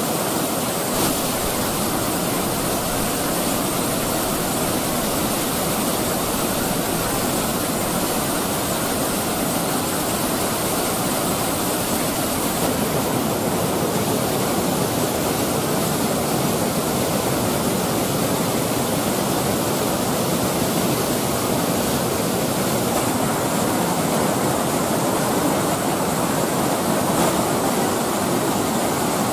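Waterfall in flood, with floodwater rushing over a weir and walkway: a steady, unbroken rush of water.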